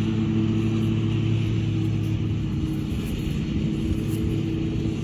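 Steady low mechanical hum, like a motor or engine running: one held low tone with its overtones, unchanging in pitch and level.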